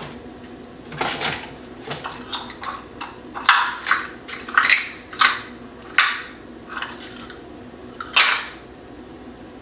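Measuring cups clacking and knocking together as they are picked up and sorted through, in a series of sharp, irregularly spaced clatters.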